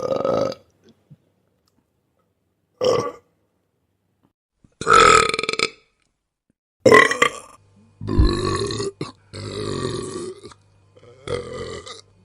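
A string of about seven human burps, one after another with short gaps: some brief, some drawn out for about a second.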